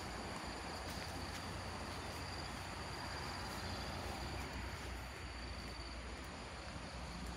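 Insects trilling steadily at a high pitch over a low rumble; the trill fades out about five seconds in.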